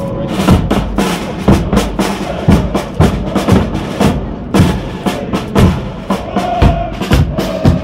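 Military marching drums beating a parade cadence: loud strokes about twice a second with lighter beats between them.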